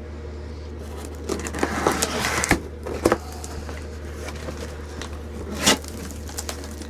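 Handling of a cardboard box packed with stone chips and nodules: rustling of packing with a few sharp clicks and knocks, the loudest knock about two thirds of the way through. A steady low hum runs underneath.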